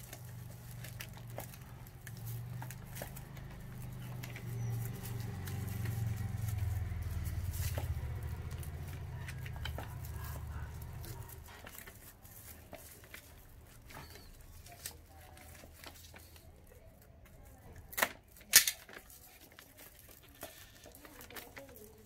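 Rustling and handling noises while a plant pot is packed and tied into a basket, with scattered small clicks and two sharp clicks near the end. A low hum swells and then fades away in the first half.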